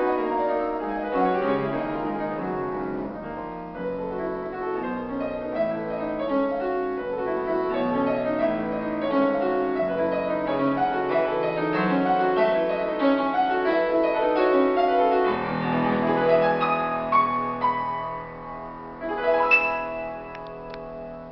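Grand piano played solo in a dense, fast-moving passage, with a loud struck chord near the end whose ringing then dies away.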